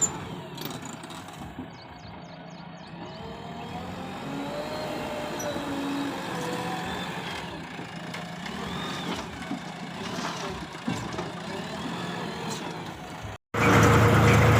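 Heavy diesel vehicle engines running, with pitches that waver and glide as the machines work. Near the end the sound cuts out abruptly, then comes back as a much louder, steady engine.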